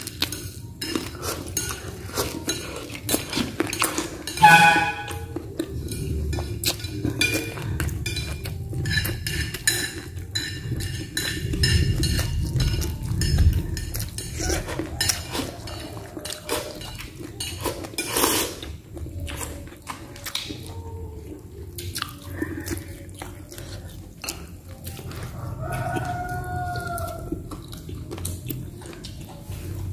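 Dishes and cutlery clinking and tapping irregularly on a table while someone eats.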